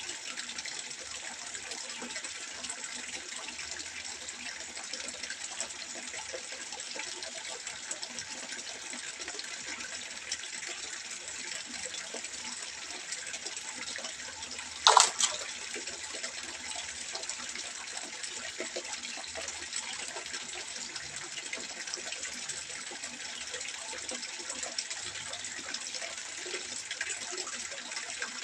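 Water trickling steadily into a fish pond, with one short, sharp, louder sound about halfway through.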